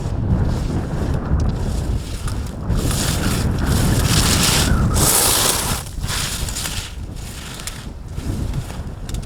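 Wind buffeting the microphone in uneven gusts, with a louder hissing rush in the middle lasting about three seconds.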